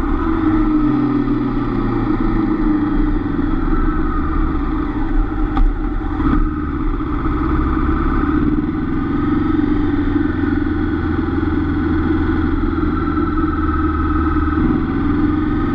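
Honda CB500F's parallel-twin engine running steadily at low speed, with road and wind noise.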